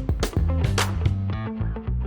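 Background music: a guitar and bass track with a steady beat.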